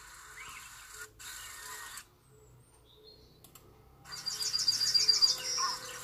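Bird-like chirps played through a laptop's speakers as a nature-themed channel intro begins. They are faint at first, then stop for about two seconds. Near the end comes a loud, rapid high trill of about ten notes in a second.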